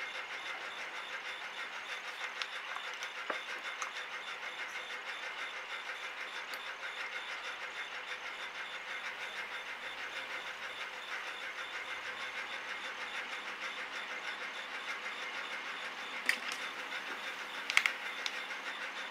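A steady mechanical drone with an even pulse, and two sharp knocks near the end, the second the louder.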